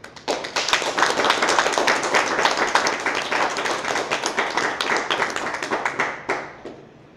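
Audience applauding: a dense patter of clapping hands that starts just after a poem ends, then thins to a few last claps and stops about six and a half seconds in.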